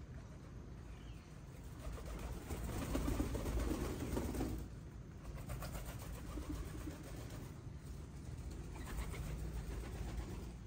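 A flock of domestic pigeons cooing as they feed, with wingbeats as birds flutter up. The sound swells from about two seconds in to around four and a half seconds, then settles and lifts again near the end.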